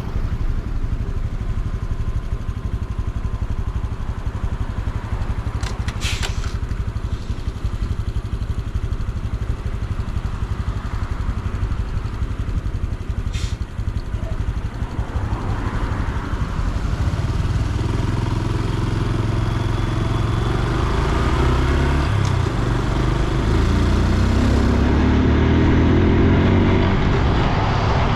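Honda Super Cub C125's 125 cc single-cylinder engine and exhaust under way, over a steady low rumble. About two-thirds of the way in, the engine note grows louder and rises in pitch as the bike accelerates.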